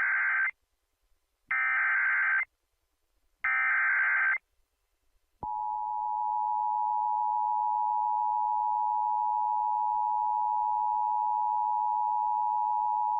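Emergency Alert System signal: three one-second bursts of the digital SAME header, the first ending just after the start, then a short silence and, about five seconds in, the two-tone attention signal, a steady dual tone held to the end. The header and tones announce a severe thunderstorm warning.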